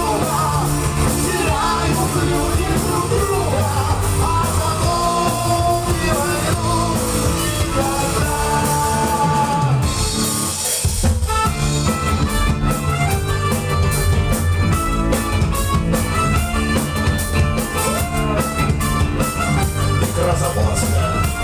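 Rock band playing live, with a drum kit and guitar under a melody line. About ten seconds in the bass drops out briefly, then the full band comes back in on a steady beat with regular cymbal strokes.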